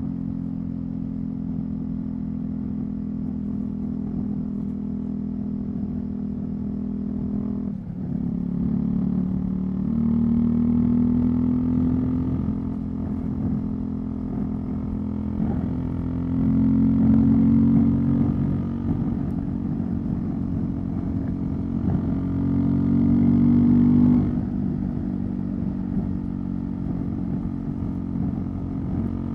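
Husqvarna Svartpilen 401's single-cylinder engine running through a Leovince LV-10 aftermarket exhaust while being ridden. The note holds steady at first, dips briefly about eight seconds in, then rises and falls several times as the bike pulls and eases off.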